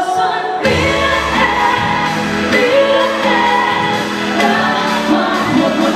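Live pop music: a woman sings into a microphone with her backing band. The full band, with bass and drums, comes in about half a second in.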